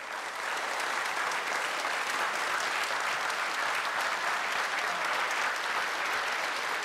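Studio audience applauding: a steady, dense round of clapping.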